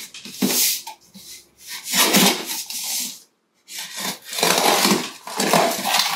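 Cardboard shipping box being handled and cut open: packing tape scraped and sliced with a small blade, and the cardboard flaps rubbed and pulled apart. It comes as scraping and rustling bursts, with a brief pause about three seconds in.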